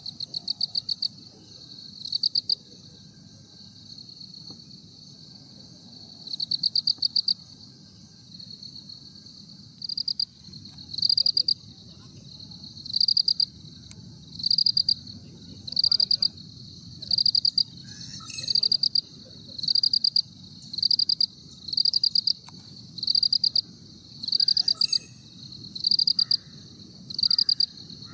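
A cricket chirping: short, rapidly pulsed high chirps, scattered at first, then regular about once a second from partway through.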